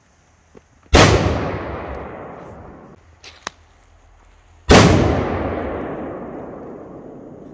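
Two powerful Polish firecrackers (Polenböller) exploding about four seconds apart, each a sharp, very loud bang with a long echoing tail that fades over a couple of seconds. A couple of faint small cracks come between the two bangs.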